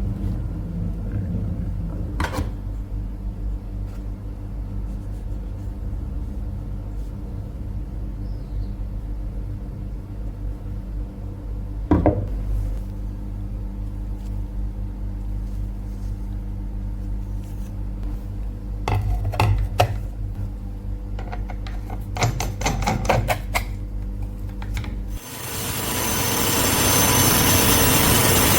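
An electric workshop machine's motor running with a steady low hum, with a few sharp clicks and knocks of work on metal. About 25 seconds in the hum cuts out and a louder, even hissing grind takes over.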